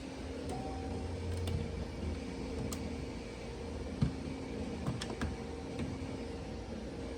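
Steady mechanical hum, like a small motor or fan running, with a few light clicks and one sharper knock about four seconds in.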